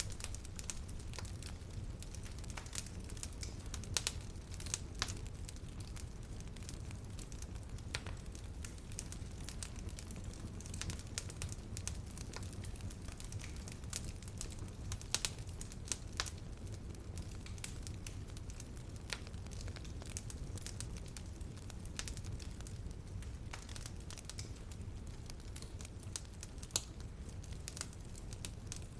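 Wood fire in a fireplace crackling, with irregular pops and snaps over a low steady rumble of the burning. A few louder pops stand out, about four seconds in, near the middle and near the end.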